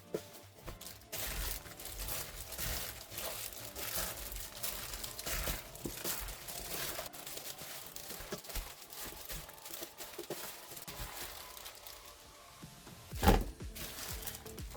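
Crinkling and rustling from food being handled, with one loud thump about thirteen seconds in.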